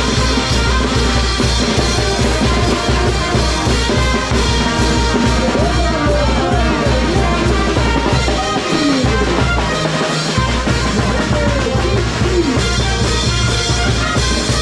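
Brass band playing: trumpets, trombones and sousaphones over a drum kit with timbales, keeping a steady beat. Twice, about nine and ten seconds in, the low drums drop out for a moment.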